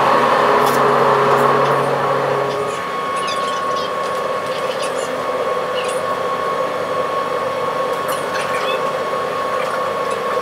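Car ferry's engines and machinery running with a steady hum, heard from the deck as the ship gets under way. A deeper tone in the hum drops away about two and a half seconds in.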